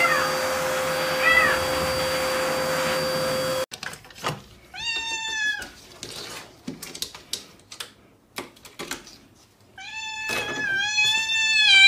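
Wet cat meowing in protest while being bathed, one short meow about a second in over a steady hum. Then a different cat gives two long, drawn-out meows, around five seconds in and near the end, with a few light clicks and knocks between them.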